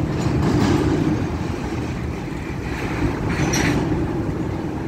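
Low, steady rumble of diesel locomotive engines.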